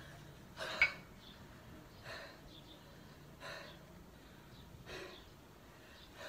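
A kettlebell lifter breathing hard and sharply under load, a short forceful breath about every second and a half, the loudest about a second in, during a set of two-kettlebell long cycle (clean and jerk).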